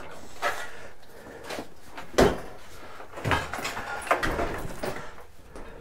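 Scattered knocks and clunks of things being handled and moved, the loudest a dull thump about two seconds in.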